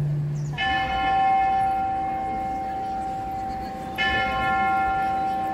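A bell struck twice, about three and a half seconds apart, each stroke ringing on in a long, slowly fading tone.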